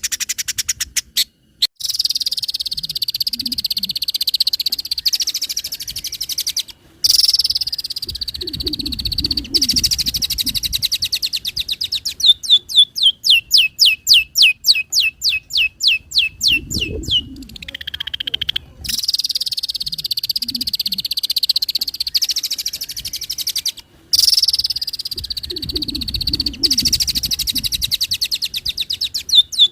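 Long-tailed shrike (cendet) singing a loud, fast, chattering song packed with mimicked phrases, with runs of quick falling whistled notes about four a second in the middle and near the end. Low croaking sounds come and go underneath.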